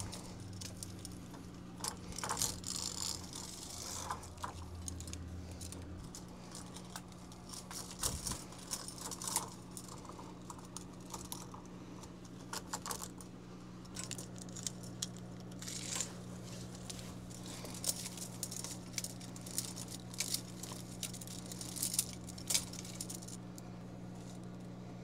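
Plastic pull chain of a backdrop roller system rattling and clicking in short, irregular bursts as it is handled and fitted, over a steady low hum.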